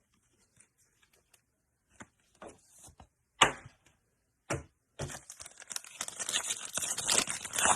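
A trading card pack's wrapper being handled and torn open: a few sharp clicks and snaps, then from about five seconds in a dense crinkling crackle as the wrapper is pulled apart.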